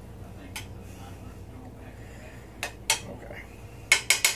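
Metal spoon clinking and scraping against a cast-iron skillet while stirring melting butter and condensed milk: a few scattered clinks, then a quick run of about half a dozen sharp taps near the end.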